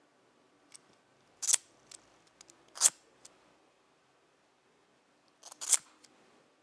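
A cigarette lighter being struck to light it: three loud sharp strikes about a second and a half apart, then again after a pause near the end, with smaller clicks and scrapes between them.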